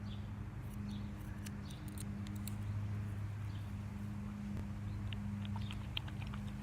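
Scissors snipping through the plastic netting of a mesh squishy ball: scattered short, sharp snips and clicks, over a steady low hum.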